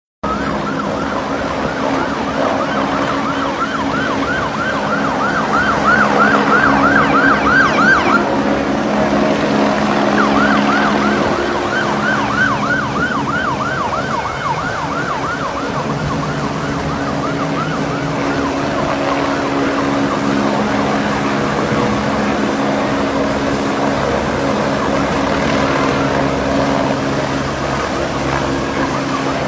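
A siren in fast yelp mode, its pitch sweeping up and down several times a second, in two stretches during the first half with a short break between them. Under it run a steady engine drone and the rush of wind and water.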